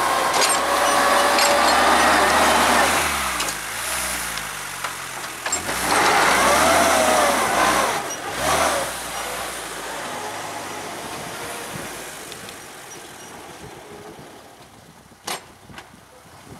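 Homemade mini-tractor's engine running as the tractor pushes snow with its front blade. The engine's pitch rises and falls twice, then the sound fades as the tractor moves away. A single sharp click is heard near the end.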